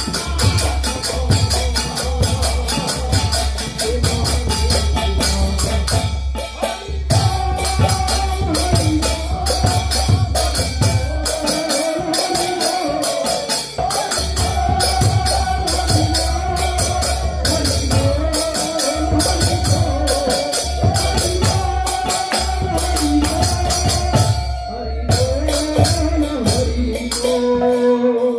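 Harinam sankirtan, devotional kirtan music: a melody sung or played in wavering, sustained lines over fast, steady jingling percussion such as hand cymbals. The music stops at the very end.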